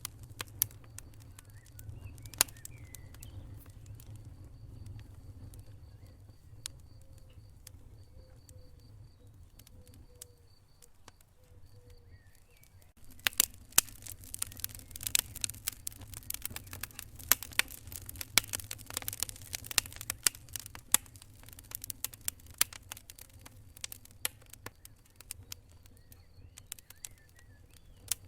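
Wood fire in a fireplace crackling and popping over a low rumble of flames. The pops are sparse at first, then come thick and fast from about halfway through before thinning again.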